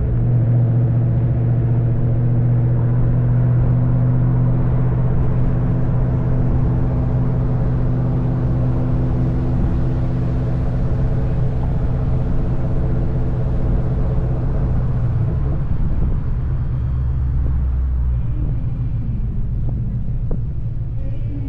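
2003 Mustang SVT Cobra's supercharged V8 through an SLP Loudmouth exhaust, running at a steady engine speed with a deep, even drone. About fifteen seconds in the note drops lower and rougher as the engine comes off the throttle.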